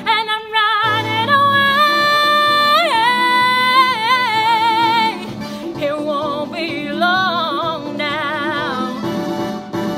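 Female vocalist belting a long sustained high note over an instrumental backing track; the note opens into a wide vibrato and is held for about four seconds. It is followed by a softer, shorter sung phrase while the accompaniment plays on.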